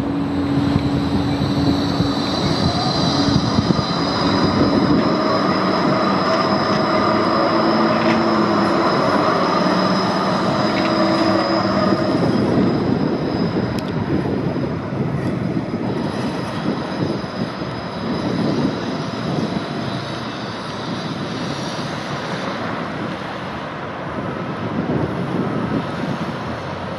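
Bombardier Flexity 2 light-rail tram pulling away, its traction motors whining in several steady tones that rise slightly in pitch as it gathers speed. The whine fades out after about twelve seconds as the tram draws away, leaving an even background noise.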